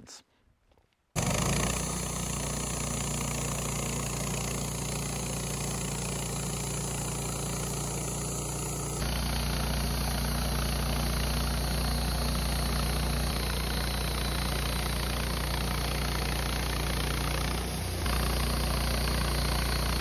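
Wood-Mizer LT15 portable band sawmill running steadily, its blade sawing a board off a sugar pine cant. It starts about a second in.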